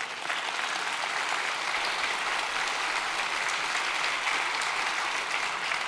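Congregation applauding, a dense steady clapping that swells up at the start and holds through.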